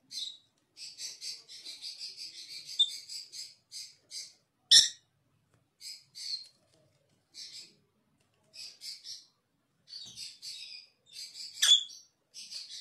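Small pet parrots chirping in rapid clusters of short, high chirps while squabbling over a toy ring. There is a loud sharp click about five seconds in, and another loud sharp sound near the end.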